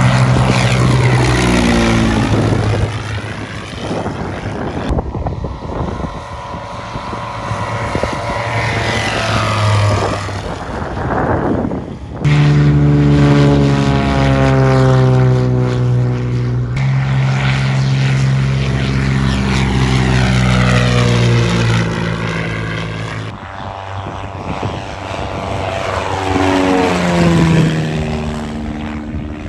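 Propeller-driven light airplanes going by under engine power, one pass after another, the engine pitch dropping as an airplane passes. The sound changes abruptly several times as it jumps from one pass to the next.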